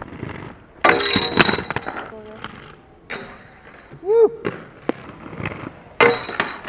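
Skateboard wheels rolling on hard ground and board impacts. A loud roll starts about a second in, sharp clacks follow in the middle, and another roll starts near the end.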